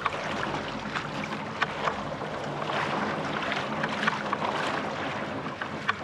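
A kayak moving across open water: water splashing and lapping at the hull, with many small, sharp splash ticks and wind on the microphone.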